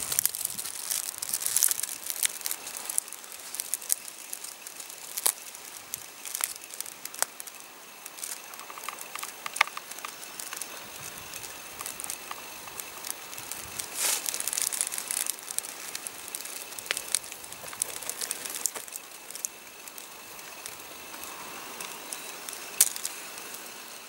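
Crunching, crackling footsteps and rustling of someone walking over dry ground, an uneven run of sharp clicks with no steady rhythm.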